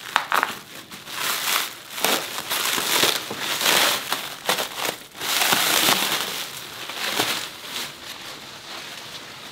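Plastic stretch wrap being slit with an axe blade and torn off by hand, crinkling and rustling in loud, irregular bursts.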